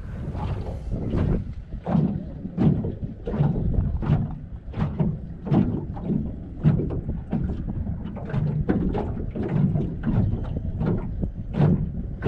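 Small waves slapping against the hull of a small flat-bottomed boat in a quick, uneven run, one or two slaps a second, with wind rumbling on the microphone.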